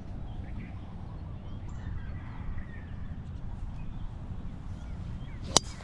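A golf driver striking a ball off the tee about five and a half seconds in: one sharp, short crack, the loudest sound, over a steady low rumble.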